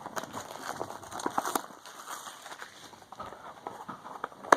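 Small cardboard toy boxes and packaging being handled: light rustling and scattered clicks, with one sharper click near the end.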